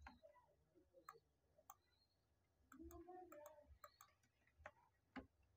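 Near silence: room tone with a few faint, scattered clicks from a computer keyboard and mouse.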